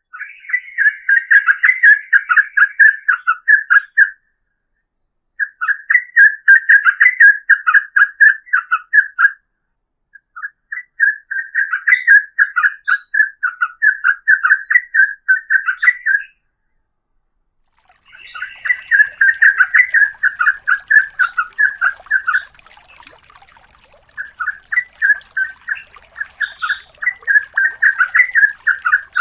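Yellow-vented bulbul (trucukan) singing long, rapid runs of quick chattering notes, in five bursts of about four to six seconds each, with short pauses between them.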